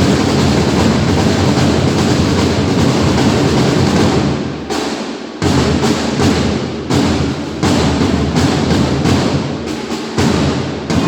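Loud music with percussion and drums, which drops away briefly about halfway through and comes back in with sudden re-entries several times.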